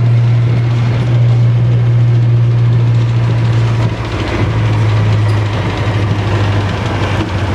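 AS90 self-propelled gun's V8 diesel engine running with a steady deep drone as the tracked vehicle drives past. The note drops a little about four seconds in, and rattling track clatter grows near the end.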